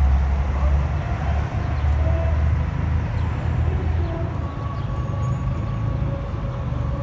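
Urban outdoor ambience: a steady low rumble of city traffic, with faint thin tones drifting in and out above it.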